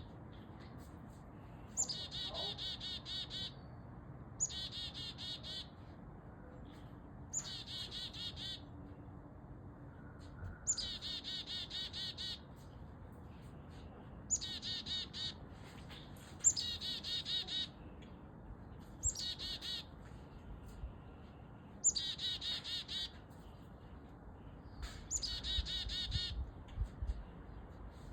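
A bird singing the same short phrase over and over, about every two to three seconds. Each phrase is a high note followed by a fast, even trill lasting about a second.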